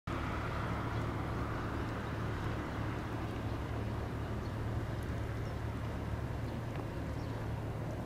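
Steady low rumble of distant road traffic, unbroken, with a light hiss over it.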